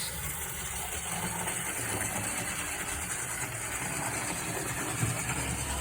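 Hornby model Standard 4 steam locomotive running around the track, its small electric motor and wheels giving a steady mechanical hum.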